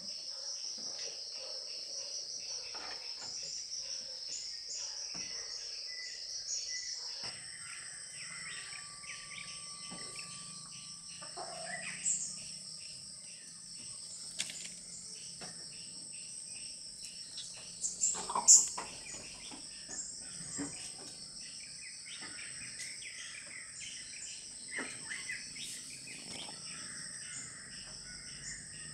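A steady chorus of insects chirping in the outdoor background, with scattered bird chirps. A few sudden sharp sounds stand out, the loudest a cluster about eighteen seconds in.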